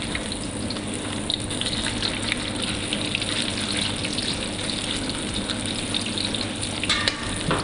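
Tofu deep-frying in a wok of hot oil: a steady bubbling hiss, with a low steady hum underneath. A brief scrape of the ladle against the wok about seven seconds in.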